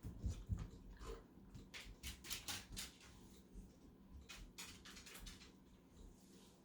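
Faint sounds of a dog moving about: a few low thumps at first, then two short spells of quick, scratchy scuffling.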